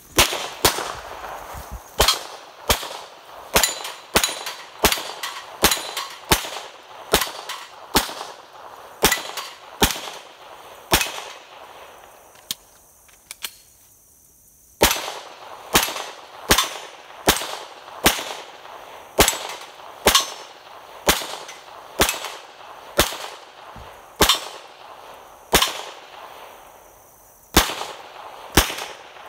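A string of pistol shots at a steady pace, a little over one a second, at a rack of steel plates, each shot followed by a short ring. The string stops for about two seconds near the middle, resumes, pauses again briefly, and ends with two final shots.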